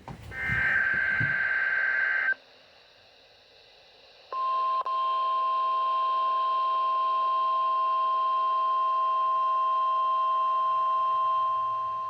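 NOAA Weather Radio Emergency Alert System broadcast: a SAME digital header burst, a harsh buzzing warble lasting about two seconds. About two seconds of silence follow, then the steady 1050 Hz warning alarm tone starts about four seconds in and holds, announcing the warning message that follows.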